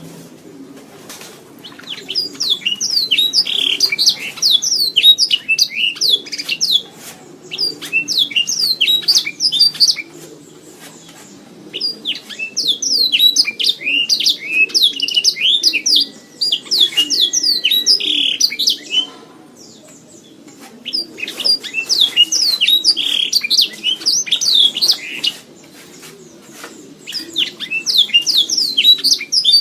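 Domestic canary singing long phrases of rapid, high trills and chirps, with short pauses between phrases about three times.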